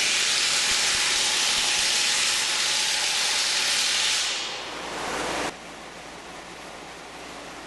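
Pneumatic impact wrench running, a loud steady hiss of air. It eases off about four seconds in and cuts off suddenly at about five and a half seconds, leaving quieter background noise.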